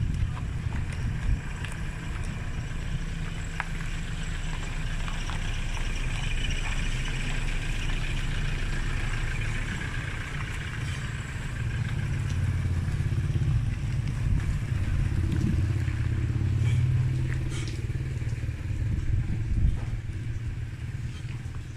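Street traffic: vehicle engines running close by, a low steady engine hum that grows louder for a while in the second half as a vehicle passes or idles near.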